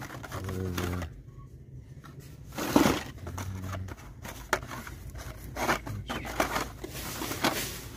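Carded Matchbox die-cast cars being flipped and pulled through by hand in a cardboard display tray: plastic blisters and card backs clacking and rustling in quick irregular clicks, with one louder knock about three seconds in.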